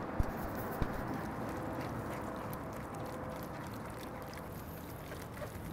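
A liquid marinade being pressed through a fine-mesh strainer with a gloved hand: wet squishing and liquid dripping into a glass bowl, with a couple of light clicks in the first second.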